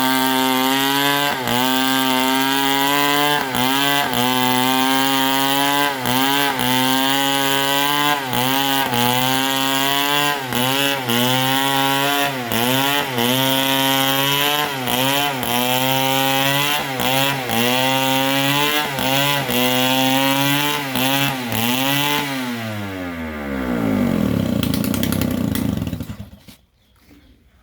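STIHL two-stroke chainsaw running at full throttle through palm wood, its engine note dipping briefly again and again as the chain bites. Near the end the throttle is released and the engine winds down in a long falling pitch, going quiet just before the end.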